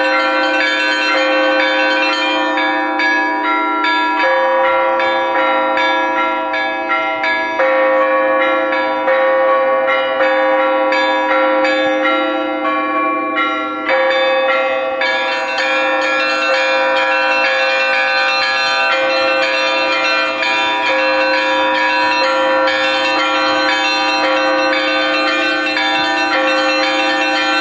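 Russian Orthodox church bells (kolokolny zvon) rung together: many bells struck in a rapid, continuous peal over a steady low ringing tone, with louder bells re-struck every few seconds.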